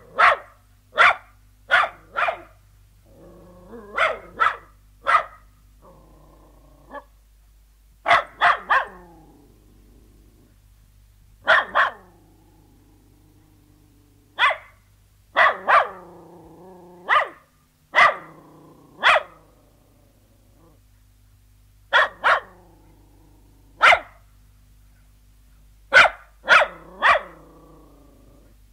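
A terrier barking and growling: short, sharp barks at irregular intervals, singly or in quick runs of two or three, with low growls held between bursts of barking.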